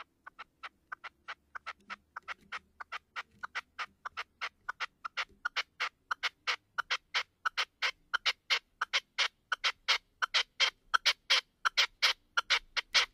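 Caged male red-legged partridge used as a hunting decoy (reclamo), calling in a long run of short, sharp notes about four a second that grow steadily louder. This is the decoy's call meant to draw wild partridges in.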